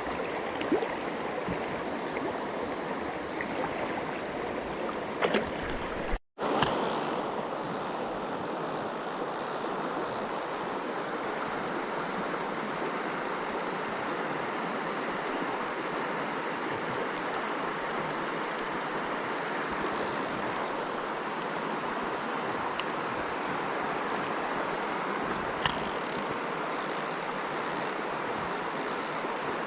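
Mountain stream water rushing over rocks, a steady even hiss, with a few faint clicks. The sound cuts out for a moment about six seconds in.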